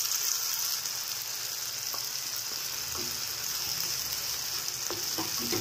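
Onions, green chillies and freshly added tomato-spice paste frying in oil in a kadai: a steady sizzle, with a few light scrapes of a wooden spatula stirring it.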